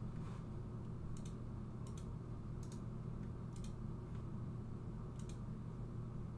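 Computer mouse clicking about six times at irregular intervals, several clicks heard as a quick double tick of press and release, over a steady low hum.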